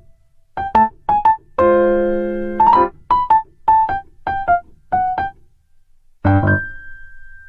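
Background music on an electric piano or keyboard: short, separate notes about two a second, with one held chord about two seconds in and a long, thin high tone near the end.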